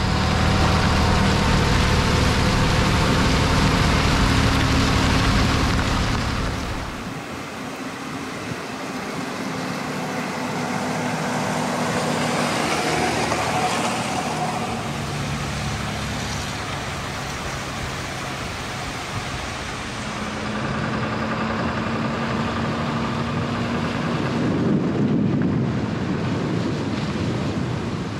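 Pickup truck carrying a truck camper driving on a gravel forest road: engine hum with tyre and road noise, loudest for about the first seven seconds, then quieter.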